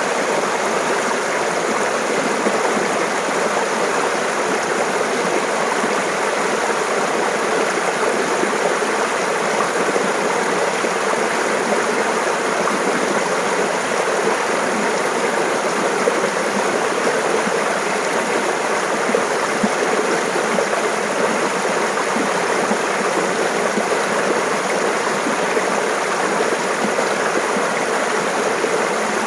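Shallow stream of water running and babbling over rocks, a steady, even splashing and gurgling.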